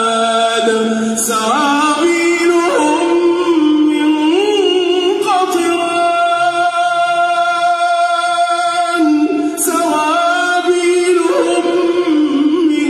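A man's solo voice chanting unaccompanied into a microphone, in an Islamic recitation style, with long ornamented notes that waver up and down. A long steady note is held for about four seconds mid-way before the voice moves on into more ornamented phrases.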